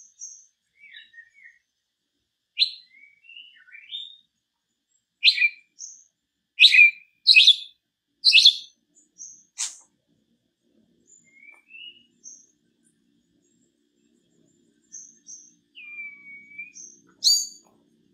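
Small songbird calls: a loose series of sharp, harsh chirps, loudest about five to nine seconds in, with softer twittering and a short whistle near the end.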